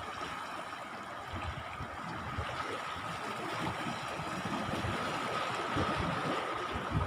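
Steady wash of sea and wind noise at the shore, with a faint steady whine and low irregular buffets of wind on the microphone.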